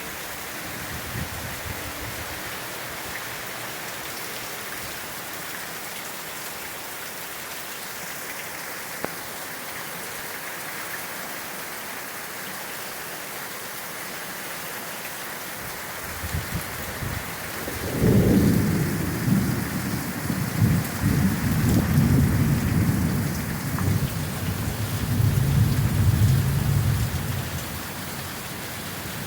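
Rain falling steadily in a hiss. About two-thirds of the way in, a long, loud rolling rumble of thunder starts and lasts around ten seconds.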